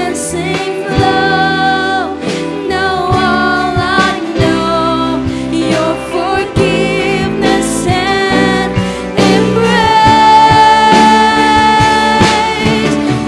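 Live worship band playing and singing a praise song: women and a man singing together over keyboard, electric guitars and drum kit, with a long held sung note near the end.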